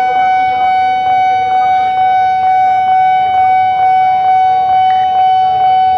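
Railway level-crossing warning alarm sounding: a loud, steady high electronic tone with a pulse repeating about twice a second, the signal that the crossing is closed for an approaching train.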